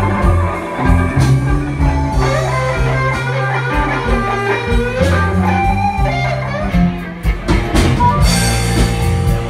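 Background music: a guitar-led song with drums and a stepping bass line.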